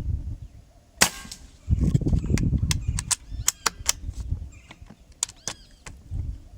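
A single shot from a Mendoza Escuadron M30C air rifle about a second in, a sharp crack. It is followed by a low rumble and a run of fainter, sharp clicks.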